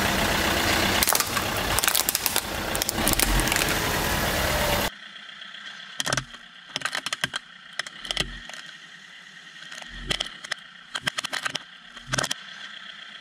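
A car running close by, loud and steady for about five seconds, then cut off abruptly. A quieter engine hum follows, with a string of sharp cracks and creaks as the car tyre presses down on a plastic toy car.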